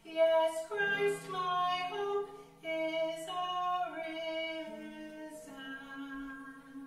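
A woman singing a slow melody in long held notes, the words' hissing consonants audible between them.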